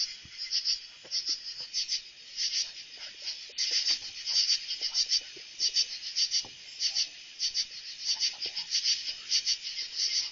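Night insects chirping, short high chirps repeating two or three times a second without a break.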